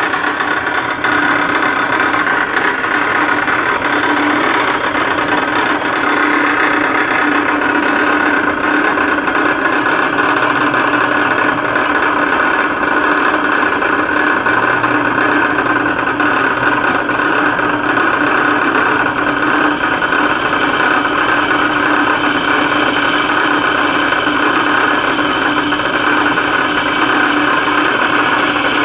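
Metal-cutting bandsaw running steadily through steel stock, a continuous machine whine with a lower hum.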